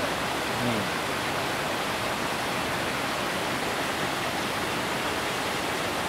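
A large waterfall about 85 m high and 15 m wide pouring onto rocks: a constant, even rush of falling water.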